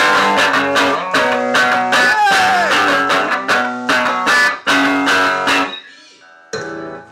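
Electric guitar strummed in a quick, steady rhythm of chords, about three to four strokes a second; the strumming stops about six seconds in and one more chord rings near the end.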